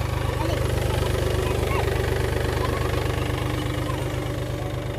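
Powertrac Euro 50 tractor's diesel engine idling with a steady, even low beat.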